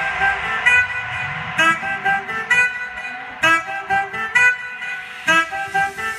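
Dance music played on a car sound system: a break of short, separate high melodic notes with the bass cut out.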